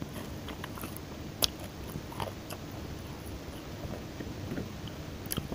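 Close-up chewing of deep-fried pandan chicken, with scattered small wet clicks and crackles and a sharper crunch about one and a half seconds in and again near the end.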